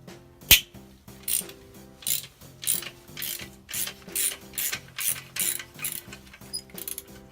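Ratchet wrench clicking in repeated short strokes, about one or two a second, as bolts are loosened, after a single sharp click about half a second in. Background music plays throughout.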